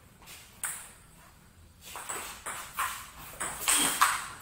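Table tennis ball clicking off the paddles and bouncing on the table in a rally: one click just under a second in, then clicks coming quicker from about two seconds in, the loudest near the end.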